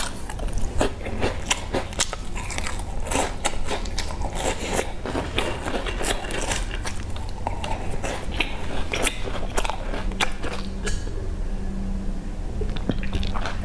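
Close-up chewing of a crisp pastry: many sharp crunches and bites. The crunching thins out about ten seconds in.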